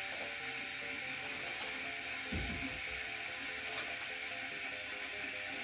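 Stainless-steel electric kettle heating water on its maximum setting, with a steady hiss from the water as it comes up toward the boil. A low thump about two seconds in. Faint background music underneath.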